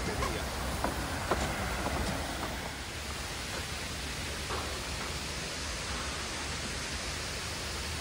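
Steady, even rush of artificial waterfall cascades pouring down a rock wall.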